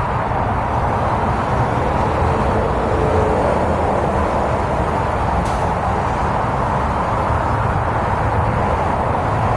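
Steady noise of multi-lane highway traffic: a continuous rush of tyres and engines from cars passing at speed.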